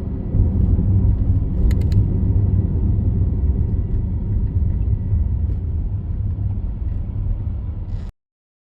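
Steady low road and engine rumble of a car driving, picked up by an in-car camera, with a few sharp clicks about two seconds in. The sound cuts off suddenly near the end.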